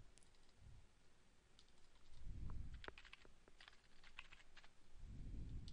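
Faint computer keyboard and mouse clicks: a scattered run of light clicks, with two soft low rumbles, one about two and a half seconds in and one near the end.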